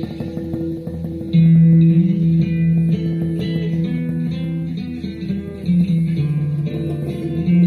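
HZZ 86 handpan (hang drum) played by hand: struck steel notes ring on and overlap in a slow melody. A louder low note enters about a second and a half in.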